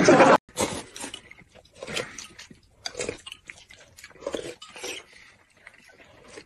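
Close-miked eating sounds: irregular chewing and wet mouth sounds of people eating noodle soup and boiled eggs.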